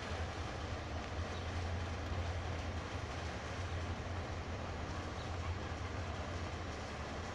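Historic side-wheel paddle steamer under way on the river: its paddle wheels and engine give a steady low rumble, with a rushing hiss of churned water over it.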